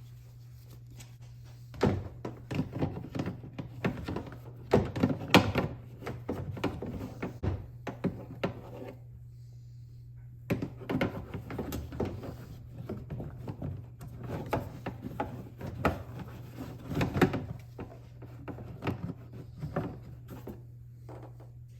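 Irregular plastic knocks, clicks and rattles of hands working a cabin air filter and its plastic housing back into place in a car, under a steady low hum.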